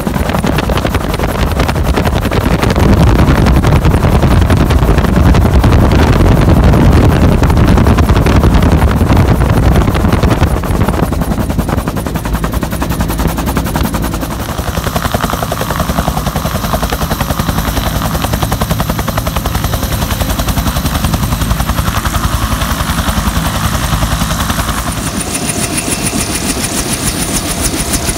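Bell UH-1 Huey helicopter's two-blade main rotor beating rapidly with the turbine running, heard loud from the open cabin door in flight. Near the end a steady high whine comes in over the rotor beat.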